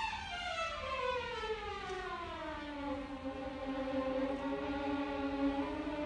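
A youth orchestra playing a long, smooth downward slide in pitch that takes about three seconds, then settles on a held low note.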